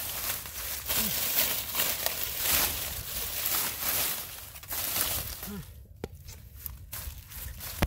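Crackling and rustling of dry leaves and stems as hands dig through mud and plant debris, with a couple of sharp clicks near the end.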